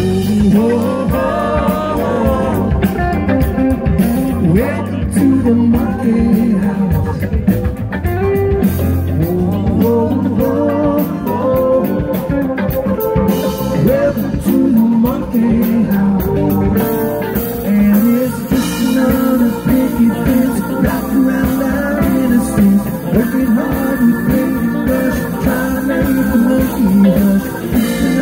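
Live rock band playing an instrumental break between verses: electric guitars, bass and drums, with a lead line bending in pitch over the rhythm.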